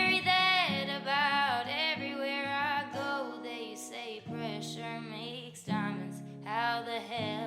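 Background music: a song with a sung vocal line over guitar and steady held accompaniment.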